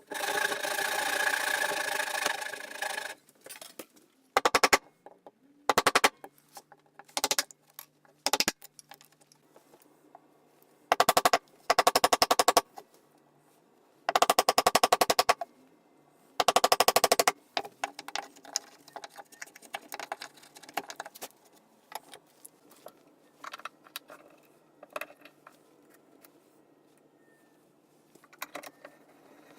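A power tool run in a series of short bursts, each a rapid rattle of strikes, after a longer, louder run at the start; light clicks and handling knocks follow in the second half.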